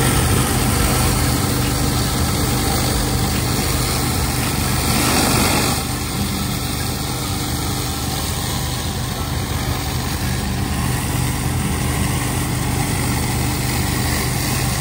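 A pressure washer's engine running steadily while a rotary surface cleaner sprays and spins over wet concrete, the water jets hissing under the deck. The spray gets louder around four to five seconds in, then settles slightly quieter from about six seconds.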